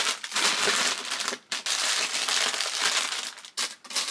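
Plastic chip and snack bags crinkling as they are handled and pushed down into a plastic basket. The crinkling comes in stretches, with short pauses about one and a half seconds in and near the end.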